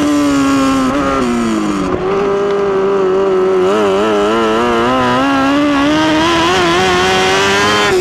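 1000cc midget race car's engine heard from on board at racing speed: the revs fall over the first two seconds as it backs off into the turn, then climb again under throttle, wavering up and down in the middle and rising steadily toward the end.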